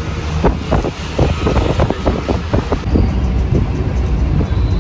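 Ride inside a moving auto-rickshaw: the vehicle's low rumble with irregular rattling and knocking, and wind buffeting the microphone.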